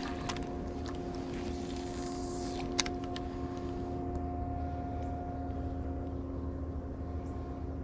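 Small boat motor running steadily: a low hum with a few held tones. One sharp click about three seconds in.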